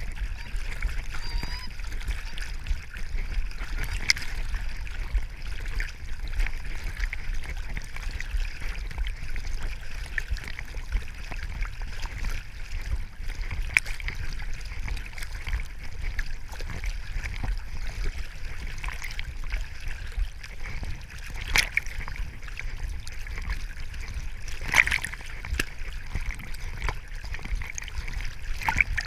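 Choppy lake water sloshing and splashing against a swimming Labrador retriever and the camera strapped to its vest, over a steady low rumble. A few sharper splashes stand out, about four seconds in and twice more past the middle.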